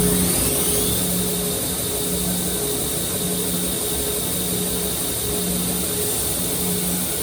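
Electric knife grinder motor coming up to speed with a rising whine over the first second, then running steadily with a high hiss.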